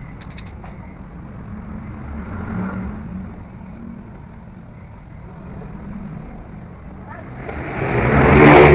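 Low engine rumble of a motor vehicle, swelling loud near the end as a vehicle passes close by.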